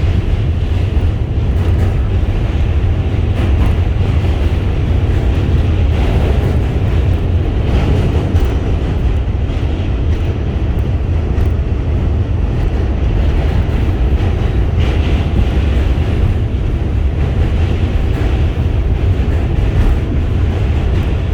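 MTA train running along the track: a steady low rumble of the moving train with a noisy hiss above it.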